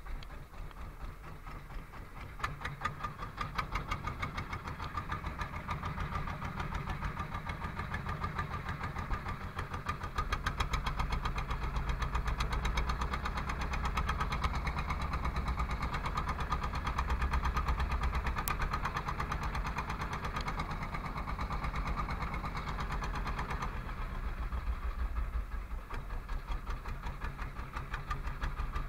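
A wooden fishing boat's engine running underway, with a rapid, even pulse.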